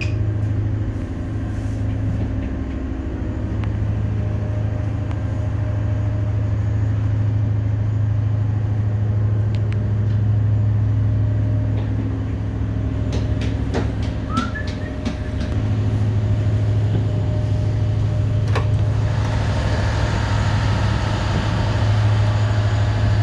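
Steady low drone of a ship's running machinery, with a few sharp clicks past the middle and a hiss that grows louder near the end.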